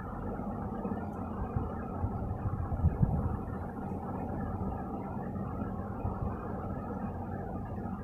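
Steady low rumble with a hum, the background noise of a workshop room, with no speech.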